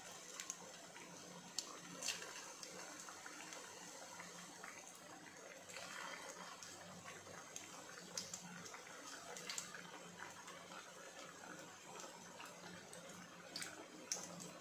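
Dhokla cutlets frying in hot oil in a nonstick pan: a steady sizzling and bubbling, broken by sharp crackling pops every few seconds.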